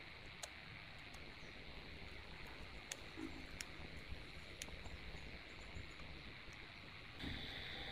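A few faint, sharp clicks as a small DC motor and its plastic gearbox housing are handled and pushed together, over a quiet steady outdoor background hiss.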